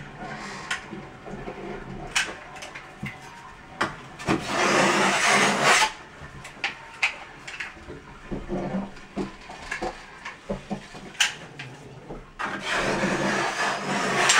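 A putty knife scraping and spreading a bead of sealant along the seam of GoBoard backer-board panels, in two long strokes of about two seconds each: one about four seconds in, one near the end. Scattered sharp clicks and knocks come from handling the caulk gun and knife.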